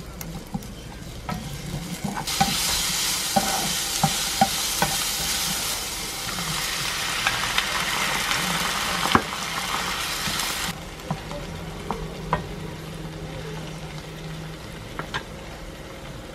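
Sliced onion and minced garlic sizzling in hot olive oil in a nonstick frying pan, stirred with chopsticks that clack against the pan. The sizzling turns loud about two seconds in; water and kimchi then go into the pan, and the sizzling stops suddenly about two-thirds of the way through, leaving occasional clicks of utensils.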